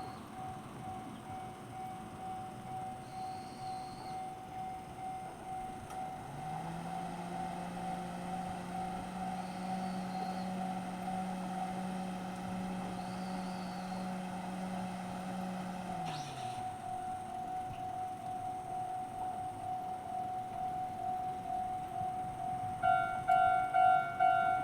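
Japanese railway level crossing's electronic warning bell ringing, about two dings a second. A low steady hum joins it for about ten seconds in the middle. Near the end a second, louder bell starts ringing.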